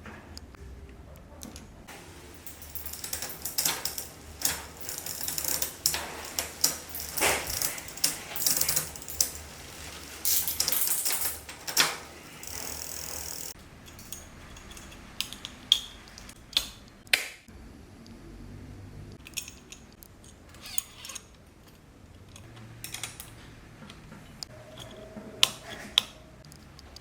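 Metal clicking, rattling and ratcheting from bicycle parts and hand tools being worked on, dense through the first half, then thinning to scattered single clicks and knocks.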